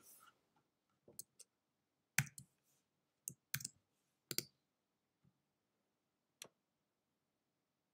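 Faint, scattered clicks of a computer mouse and keys being worked by hand, about eight in all, some in quick pairs.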